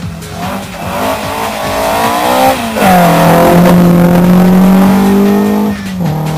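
Rally car engine accelerating hard: the revs climb, break briefly about two and a half seconds in, then hold loud and high before dropping in pitch and level near the end as the car goes past.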